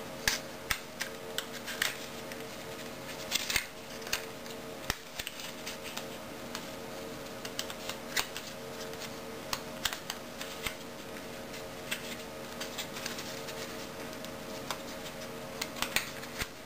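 Stiff birchbark crackling and clicking irregularly as the strip is bent into a ring and its cut joining tabs are worked together by hand.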